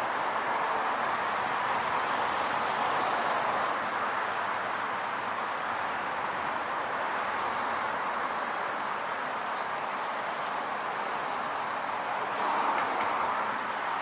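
Steady noise of city street traffic: an even wash of passing engines and tyres with no single vehicle standing out.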